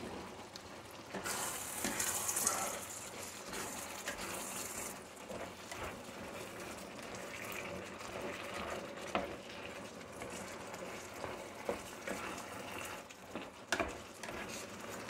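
Wet rice, meat and broth simmering in an electric paella pan while being stirred with a slotted spatula: sloshing and bubbling, louder with a hiss for the first few seconds, with a few short knocks of the spatula against the pan.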